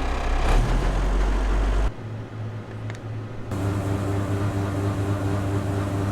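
Heavy farm machinery engines running with a steady drone. The sound drops away sharply about two seconds in, and a different steady engine note with a low hum takes over about a second and a half later.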